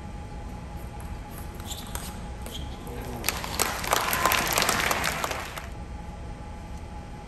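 Table tennis ball clicking off bats and table a few times in a short rally, then spectators applauding for about two seconds after the point is won.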